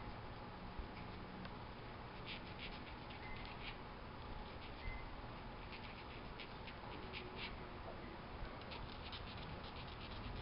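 Needle file rasping in short, quick strokes across the cut end of a 20-gauge fine silver ear wire, in several bursts, smoothing the end that goes through the ear hole.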